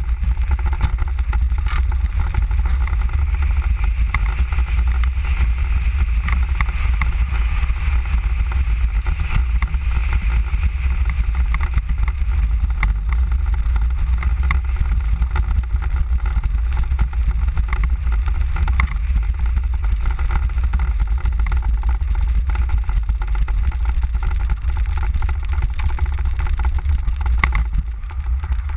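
Mango velomobile rolling along: a steady low rumble of wheels and wind through its shell, with frequent small rattles and clicks. It goes briefly quieter near the end.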